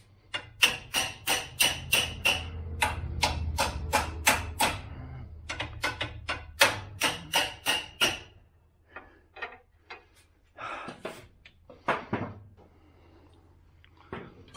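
Hammering on metal: rapid, regular blows, about three a second, for the first eight seconds or so, then a few scattered knocks and clanks.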